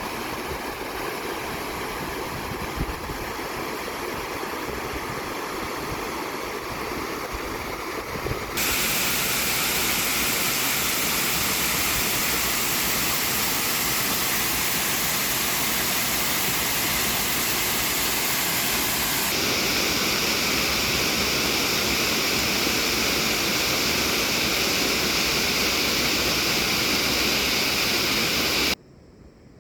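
Swollen, fast-flowing stream rushing, a loud steady wash of water. Its tone changes abruptly about 8.5 seconds in and again about 19 seconds in, and it cuts off shortly before the end.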